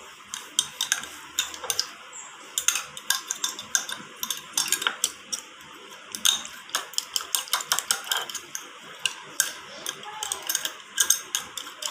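A metal fork whisking cornflour and water into a batter in a glass bowl, clicking and scraping against the bowl in quick, irregular taps.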